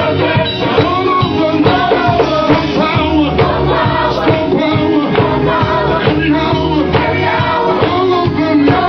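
Gospel song: several voices singing over band accompaniment with a steady beat and strong bass.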